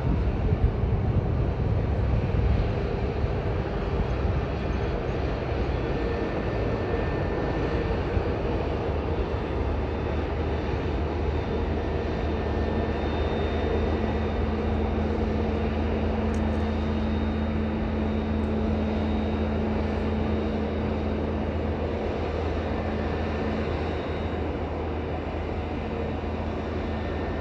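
Jet airliner engines heard from a distance as a steady rushing noise, with a faint steady hum that comes in about twelve seconds in and fades about ten seconds later.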